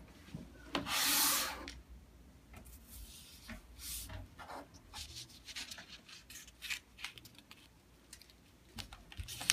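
A sheet of paper rustling and sliding across a hard tabletop, with a louder swish about a second in. Short scrapes and rustles follow as the paper is folded and the crease is pressed flat with the fingers.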